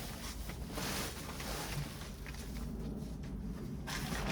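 Rustling and scraping as potting mix and the potato grow bag are handled: scattered scrapes in the first two seconds, a quieter spell, then more rustling near the end.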